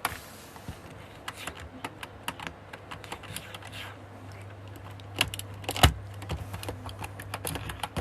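Irregular clicking and tapping, with one louder knock about six seconds in, over a low steady hum.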